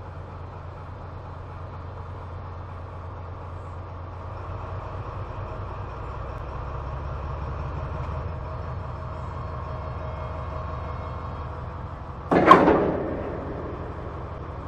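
Class 70 diesel locomotive running slowly with a steady low engine drone. About twelve seconds in there is a single loud metallic clang that rings briefly, as the loco buffers up against a TEA bogie tank wagon to couple on.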